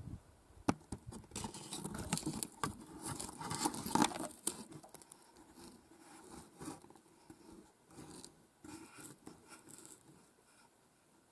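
Close rustling and scraping with scattered sharp clicks, busiest and loudest in the first half and dying away near the end: movement of hands or clothing right at the microphone.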